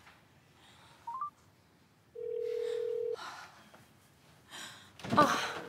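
Smartphone placing a call: three quick rising beeps, then the ringback tone sounding for about a second. It repeats about three seconds later near the end, meaning the line is ringing with no answer yet.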